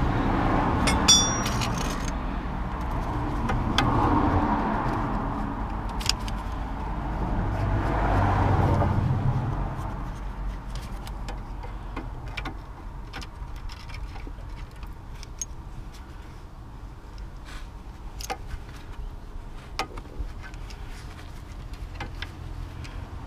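Road traffic swells past twice in the first ten seconds, then fades; through the rest come scattered light metallic clicks and clinks of hand tools and mole grips working on a seized ball joint nut whose shaft spins with it.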